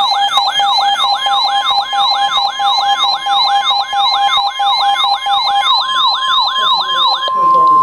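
Weather radio alert for a tornado warning: a rapid siren-like alarm that sweeps down in pitch about three times a second over steady tones. About 7 seconds in the sweeping stops, leaving the steady 1050 Hz NOAA Weather Radio warning alarm tone.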